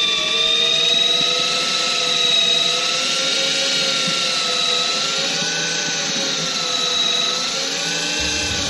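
Daiwa electric fishing reel's motor whining steadily as it winds in line, its pitch wavering slowly up and down.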